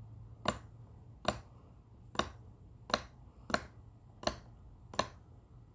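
Craftsman V-Series 3/8-inch drive 96-tooth flex-head ratchet clicking as it is turned slowly by hand in its free direction. Seven sharp single clicks come about three-quarters of a second apart, one each time the pawl drops over a tooth.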